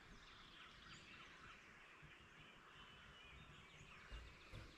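Near silence with faint songbird calls: many short chirps and whistles overlapping throughout. A soft low bump comes about four seconds in.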